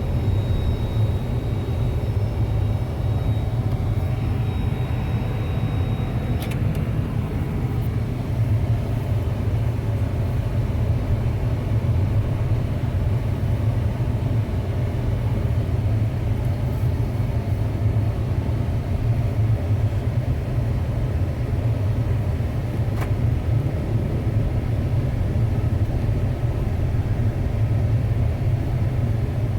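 2006 Ford Expedition driving, a steady low rumble of engine and road noise. A faint high whine stops with a click about six seconds in.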